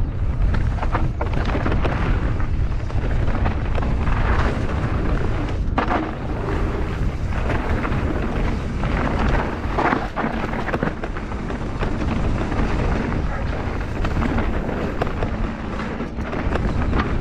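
Mountain bike riding fast down a rocky trail: heavy wind buffeting on the microphone over the rumble of tyres on stone, with frequent knocks and rattles from the bike as it hits rocks.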